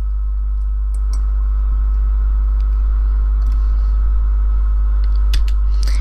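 Steady, loud low electrical hum on a video-call microphone feed, with a fainter steady whine higher up. There are a few faint clicks about a second in and again near the end.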